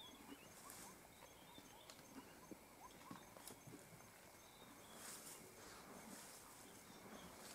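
Near silence: faint bush ambience with scattered soft clicks and rustles and a few faint high chirps.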